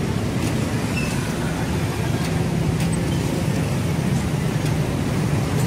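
Steady low rumble of street traffic with engines running.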